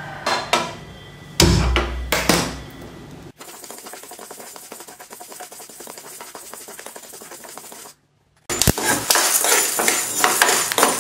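Dry horse gram seeds rattling in a dry metal kadai as a metal spatula stirs and scrapes them while they dry-roast. A few knocks in the first couple of seconds, then a quieter stretch of faint scraping, a short break, and dense rattling and scraping over the last few seconds.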